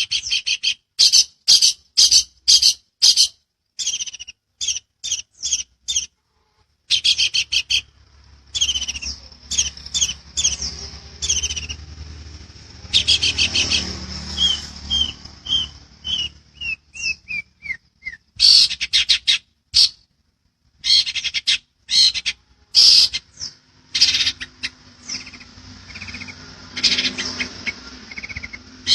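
Long-tailed shrike (cendet) singing loudly in fast bursts of harsh chattering notes, with a run of clearer notes stepping down in pitch about halfway through.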